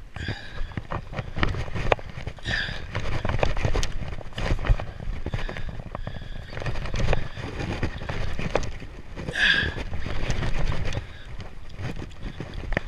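Wind buffeting the action camera's microphone over the rumble of the boat and water, with the clicking of a Shimano Ocea Jigger conventional reel being cranked while fighting a fish. Two short high squeaks come about two and a half and nine and a half seconds in.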